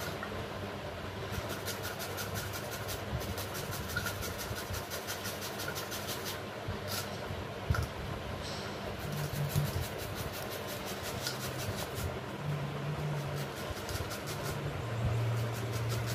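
Mango being grated on a handheld metal grater into a steel bowl: runs of quick rhythmic rasping strokes with short pauses, over a steady low hum.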